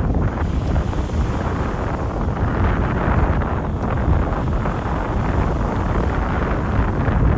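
Wind buffeting the microphone: a steady low rumble that covers the other sounds.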